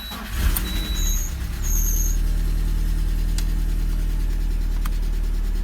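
A 1.4-litre VAZ four-cylinder engine, freshly reassembled, is cranked on the starter and catches. It stumbles unevenly for about the first second and a half, then settles into a steady idle. This is its first start after the rebuild.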